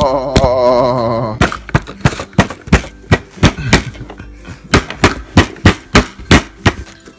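A blue plastic Play-Doh stamper mold banged down repeatedly onto a lump of dough in a cardboard box: a run of sharp thunks, about three a second and unevenly spaced. Before the thunks start, about the first second and a half holds a held, wavering voice-like tone.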